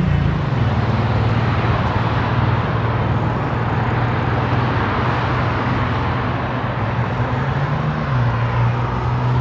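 Wind rushing over the microphone and road noise while riding a bicycle, with a steady low drone underneath.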